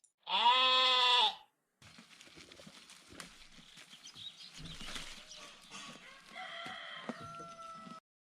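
A sheep bleats once, loudly, for about a second. Fainter farmyard background follows, with scattered clicks and a faint high call near the end.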